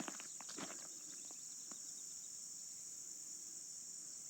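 Steady high-pitched chorus of field insects, trilling without a break. A few faint light clicks sound in the first second.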